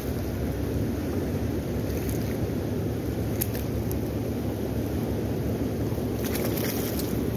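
Fast, heavy river current at high flow rushing steadily, heard close to the churning water surface.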